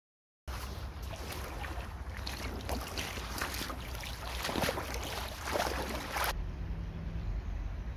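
Rubber wellington boots wading through a shallow stream: water swishes and splashes around the boots with each step, over the rush of the flowing water. A little after six seconds in the splashing stops and only a duller low rumble remains.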